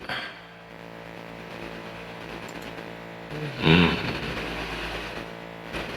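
A steady machine-like hum made of many even tones, with a short voice sound from a man a little past halfway through.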